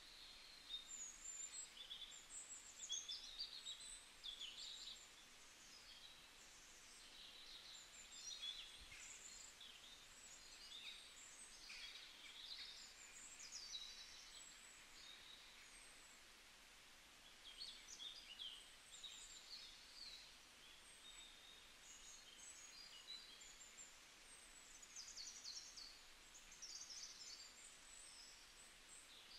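Faint, busy chirping of small birds over a low steady hiss, the calls coming in quick irregular clusters throughout.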